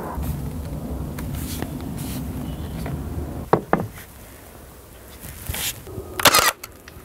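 A cordless nail gun fires a nail through a timber batten into the wall: one loud, sharp shot about six seconds in. Before it, two sharp knocks come about halfway through.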